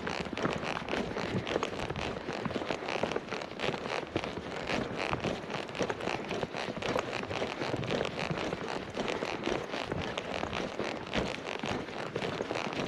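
Footsteps crunching through shallow snow, about 5 cm deep: a continuous crackle with a crunchier step every second or so.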